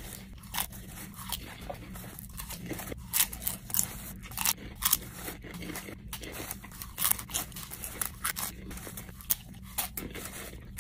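Popcorn crunched and chewed close to the microphone, ASMR-style, with many sharp, irregular crunches.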